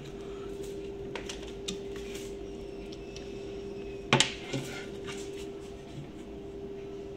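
Light clicks and metallic clinks from handling drawer-slide hardware, with a sharper pair of clicks about four seconds in, over a faint steady hum.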